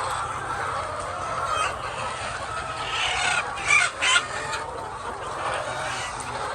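A flock of chickens clucking and calling over a steady hum, with two louder squawks near the middle.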